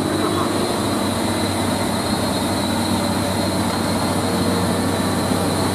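Diesel engine of a loaded Hino 500 cargo truck running with a steady low drone as the truck drives past close by.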